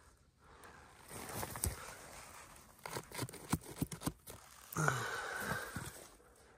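Gritty scraping, crackling and clicking as a hand grips and works a small loose stone wedged in a crack between rough granite boulders. The sounds come in an irregular run from about a second in, with a denser, breathier patch about five seconds in.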